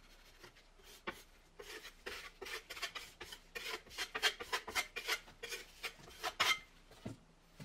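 Steel trowel scraping as it spreads and smooths paste over a rubber sealing collar on a wall, bedding the collar into the waterproofing. It goes as a run of short scraping strokes, about three a second.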